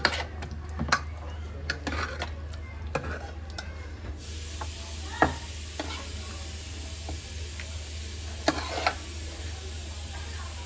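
Steel ladle stirring and scraping thick cooked khichdi in an aluminium pressure cooker, then ladling it out, with scattered sharp clinks of metal on metal. The strongest clinks come about five seconds in and in a quick cluster near the end. A low steady hum runs underneath.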